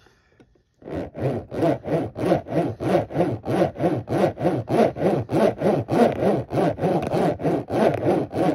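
Toy monster truck's chunky plastic wheels rolling and rubbing as it is pushed quickly back and forth on a smooth hard surface. The strokes come evenly, about three a second, each swelling and fading.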